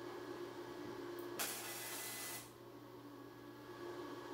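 MIG welder tack-welding steel frame tubing: one hissing burst from the arc, about a second long, starting about a second and a half in, over a low steady hum.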